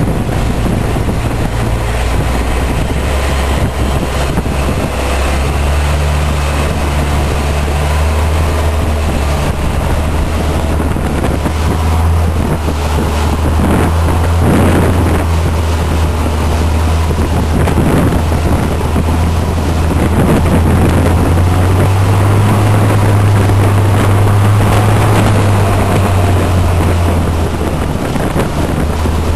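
Motorboat engine running steadily with a low drone that rises slightly in pitch about two-thirds of the way through, with wind buffeting the microphone and water rushing past the hull.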